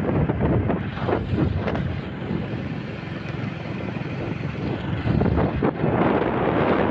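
Motorcycle being ridden along a road, its engine running under wind buffeting on the microphone.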